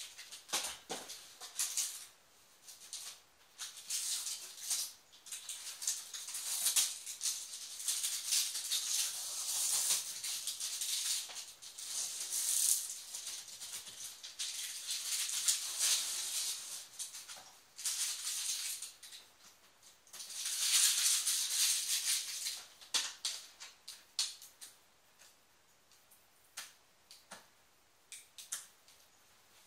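Rustling and rubbing as a flat-screen TV is wiped and handled, in uneven bursts of a few seconds with scattered light clicks and knocks, thinning out to occasional clicks in the last few seconds.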